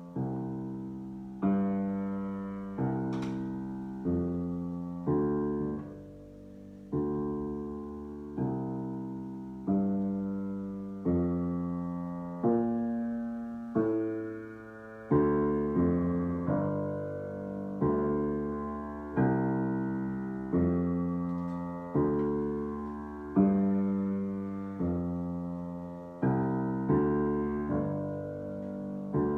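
Solo piano improvisation: slow chords struck about every one and a half seconds, each left to ring and fade before the next.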